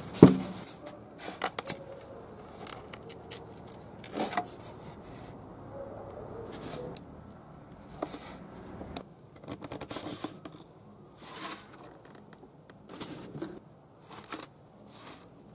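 A styrofoam cooler box set down with a knock right at the start, then scattered light clicks and scrapes of hands working a lighter and a hot-glue stick at the box and pressing the glued drain fitting into the foam.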